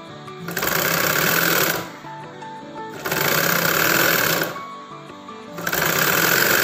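Sewing machine stitching through cotton fabric in three runs of a second or two each, stopping briefly between them as the cloth is guided along a seam.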